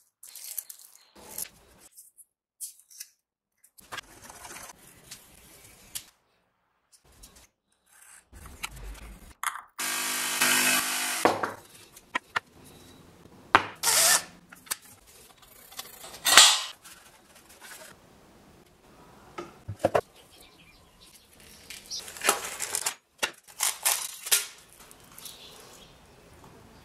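Workshop work sounds: a Makita cordless drill running in short bursts, the longest and loudest a steady whir about ten seconds in, among scattered rubbing, brushing and handling knocks.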